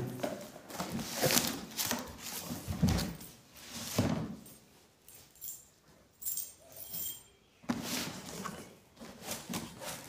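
A cardboard box being unpacked by hand: irregular scrapes, taps and rustles as the packing string is cut with a key and the cardboard flaps are pulled open, with a quieter pause in the middle.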